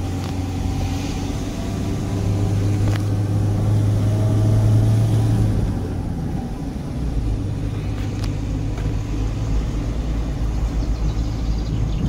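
Car engine and road noise heard from inside a moving car: a steady low hum that swells about four seconds in, then drops and deepens after about six seconds.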